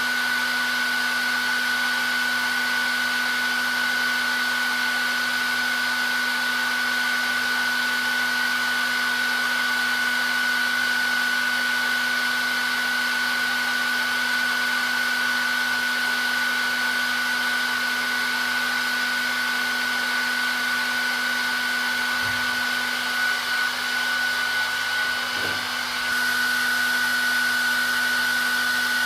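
Handheld hair dryer running continuously: a steady rush of air with a high motor whine and a low hum, wavering briefly near the end.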